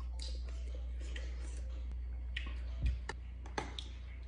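A metal spoon clicking and scraping against a ceramic dish of fruit salad, in small scattered ticks, with a single dull thump a little under three seconds in.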